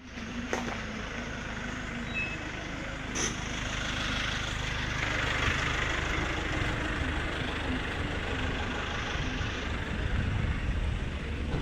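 Outdoor traffic noise: a steady low rumble of vehicles, with a broad hiss that swells and fades around the middle as a vehicle passes.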